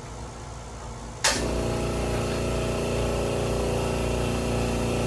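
Air compressor switching on about a second in with a sudden start, then running with a steady motor hum.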